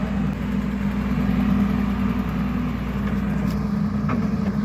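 Excavator's Cummins diesel engine running steadily at idle, with a couple of faint clicks near the end.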